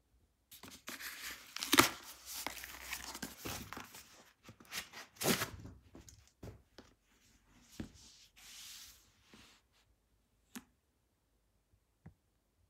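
Cardboard mailer box being torn open by hand, with short irregular ripping and crinkling of cardboard for the first several seconds. After that come only a few isolated light ticks and a brief soft rustle of handling.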